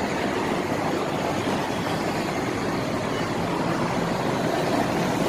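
Steady wash of road traffic noise, with no single event standing out.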